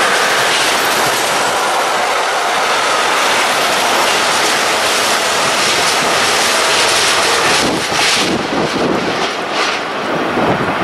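Freight train passing close by: a loud, steady rush of wagons rolling on the rails. From about seven and a half seconds in, it breaks into separate clacks of wheels over the rail joints.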